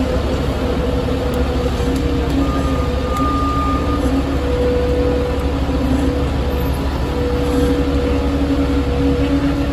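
Diesel semi truck's engine running steadily at low speed as it tows a house-moving trailer: a continuous deep rumble with a steady hum.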